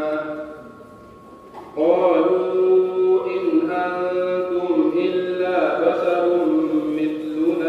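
A young man reciting the Quran solo in the melodic tajweed style, drawing out long held notes that step slowly up and down in pitch. He pauses for breath shortly after the start and resumes about two seconds in.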